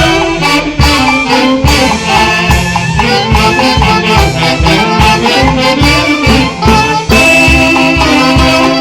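Folk orchestra playing traditional music: a melody line over a steady beat.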